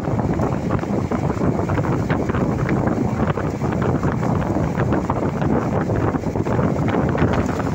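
Steady rumble and wind noise of a moving vehicle, with many small clicks and rattles.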